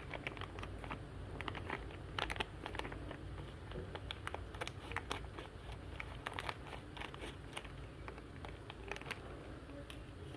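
Faint crinkling and crackling of a plastic toy blind bag, with scattered small clicks, as the bag is opened and its contents handled.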